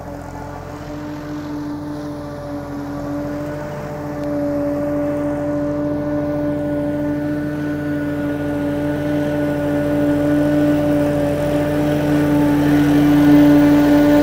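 Massey Ferguson 4292 Xtra's three-cylinder diesel engine running steadily under load, driving a Nogueira FTN 1000 G3 forage harvester as it cuts corn for silage. The steady hum grows gradually louder as the tractor comes closer.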